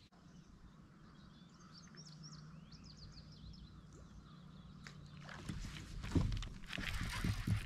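Small birds chirping, short falling calls over a faint steady low hum, then from about five and a half seconds a louder spell of rough rustling noise and knocks.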